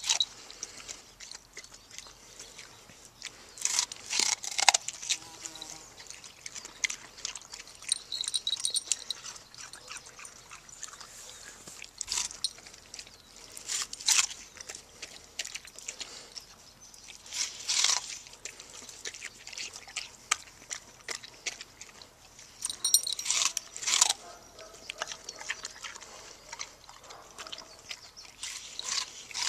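Shepherd puppy biting and chewing watermelon rind: irregular wet crunches that come in clusters, with quieter chewing between them.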